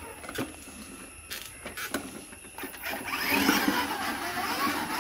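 A few knocks as a child's battery-powered ride-on toy motorcycle is mounted. Then, about three seconds in, its electric motor starts whirring and its wheels roll across a tiled floor, louder than anything before.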